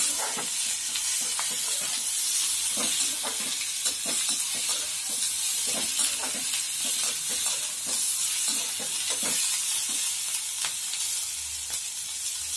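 Sliced onions, garlic and chillies sizzling in hot oil in a kadai, with a steady hiss, while a spatula stirs them with irregular scrapes and taps against the pan.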